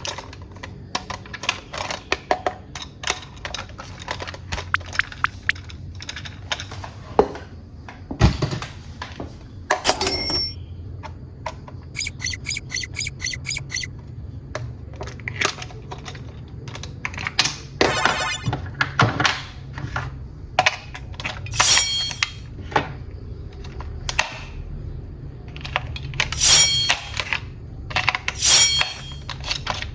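Toys and their plastic parts being handled, giving a long string of sharp clicks and clacks with a steady low hum underneath. There are short runs of rapid ticking about twelve seconds in and again a few seconds later, and the loudest clacks come near the end.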